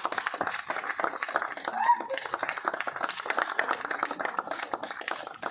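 A crowd of onlookers clapping, many quick claps overlapping without pause.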